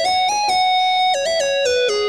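Synth lead preset from the Modern Billboard 2 Kontakt library ('Lead-A RNB Thing') playing a melody one note at a time. It climbs to a held high note, then steps down through several lower notes in the second half.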